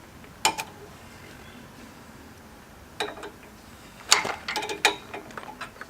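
Metal clanks and clicks from the backhoe attachment's levers and fittings being worked as it is unhooked from a Kubota BX23S tractor. There is one clank about half a second in, another around three seconds, then a quick cluster of clicks and knocks a second later.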